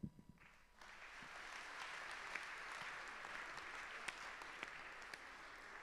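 Audience applauding. It starts about a second in and slowly fades.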